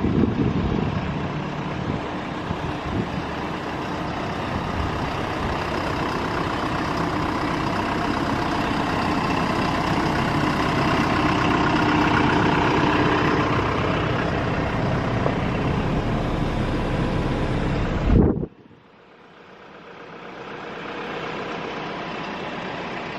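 A large vehicle's engine runs steadily, then cuts off abruptly with a brief thump about 18 seconds in, leaving a much quieter steady hum.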